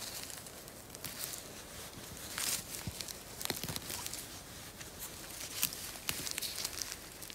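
A hand picking mushrooms from moss and pine-needle litter: rustling and soft crackling of moss, needles and twigs, with scattered small snaps and clicks as stems are pulled.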